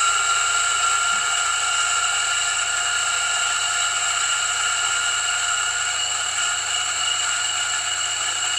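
Solo electric flat-burr coffee grinder running steadily, grinding about 17 grams of espresso beans: a steady high whine over a low motor hum.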